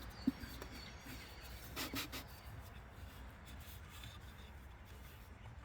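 Faint handling sounds of the air cleaner parts: a light knock just after the start and a brief rubbing scrape about two seconds in, over a low steady hum.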